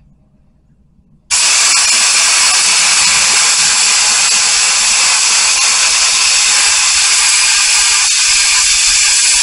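Pneumatic spray gun spraying contact adhesive: a loud, steady hiss of compressed air and glue mist that starts abruptly about a second in and runs without a break.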